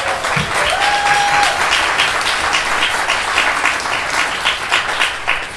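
Audience applauding with many hands clapping, one voice calling out briefly about a second in; the clapping dies away near the end.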